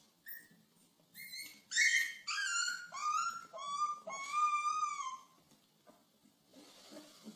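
A young puppy howling: one short yip, then a string of high, wavering cries that slide down in pitch, ending in one longer howl about four seconds in.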